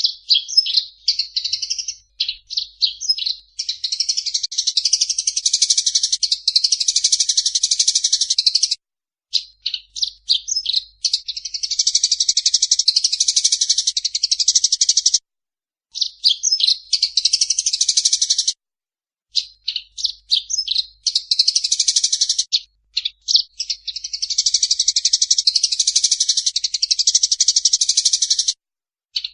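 Eurasian tree sparrows fighting, giving fast, harsh chirps. Runs of separate chirps break into long, dense stretches of chatter lasting several seconds, with short pauses between.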